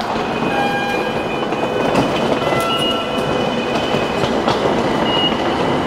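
Marunouchi Line subway train moving along the platform: a steady rush of wheel and motor noise with a few thin high tones coming and going.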